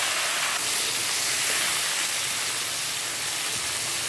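Freshly added raw potato slices frying in hot oil: a loud, steady sizzle at the start of frying, easing a little as it goes.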